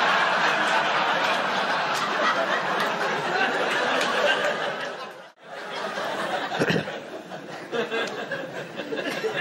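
Audience laughing, loud for about five seconds. It cuts off suddenly, then quieter laughter follows.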